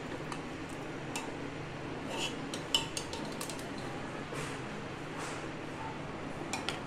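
Metal ladle clinking and scraping against the inside of an aluminium pressure cooker as boiled mutton pieces are scooped out. There are a few sharp clinks scattered through, two of them close together near the end.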